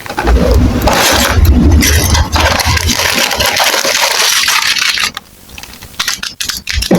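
Plastic building bricks rattling and scraping as they are handled, with heavy handling noise for about five seconds, then scattered clicks and a sharp click near the end.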